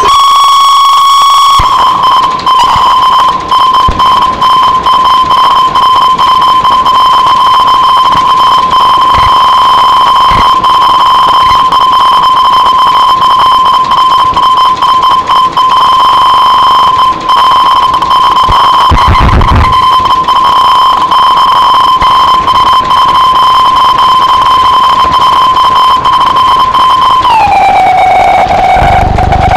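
Loud, sustained electronic drone tone held at one steady pitch, with a crackling, grainy texture over it. Near the end it slides down to a lower pitch and holds there.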